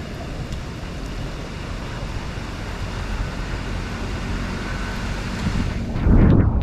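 Steady low rumbling noise outdoors with wind on the microphone, jumping to a sudden loud low buffet near the end.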